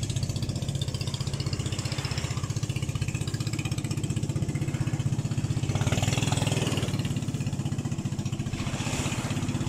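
A boat engine idling steadily, a low, evenly pulsing hum, with two brief rushes of noise about six seconds in and near the end.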